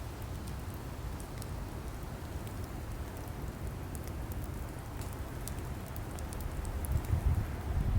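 Burning wood logs crackling, with scattered small sharp pops over a low rumble that grows louder near the end.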